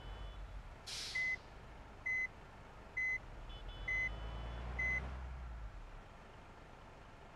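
Five short, identical electronic beeps a little under a second apart, over a low rumble that swells and then stops. A brief hiss comes just before the first beep.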